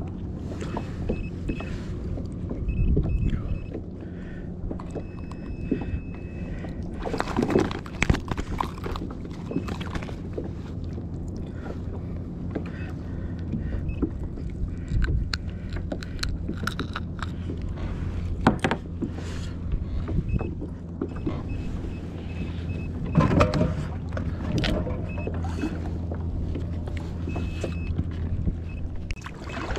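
Aboard a fishing kayak at sea: a steady low hum with a faint wash of water, broken by several sharp knocks of gear, two close together about a third of the way in and more later.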